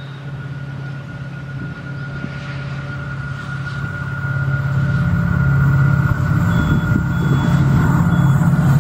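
EMD WDP4-class diesel-electric locomotive, with its two-stroke V16 engine, approaching at speed under power at the head of a passenger train. A steady engine drone with a steady high whine over it grows louder over the first half, then stays loud as the locomotive draws close.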